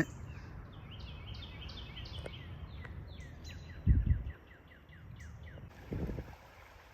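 A songbird singing a long series of short, quick descending notes that come faster partway through. Two low thumps stand out, the louder about four seconds in and a softer one about six seconds in.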